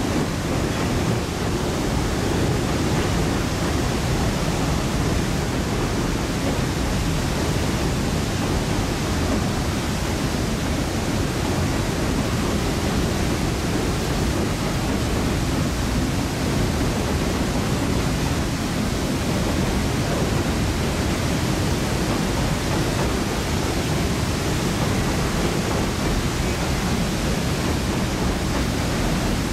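Steady, even roar of water pouring over the Iowa River dam, strongest in the low range, with no rhythm or breaks.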